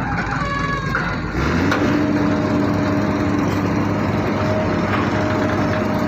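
Diesel engine of a long-arm excavator picking up speed about a second and a half in, then running steadily under load as the machine works to lift a steel sheet pile.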